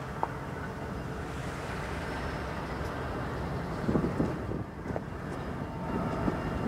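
Wind buffeting the microphone outdoors: a steady low rumble with louder, irregular gusts about four seconds in and again near the end.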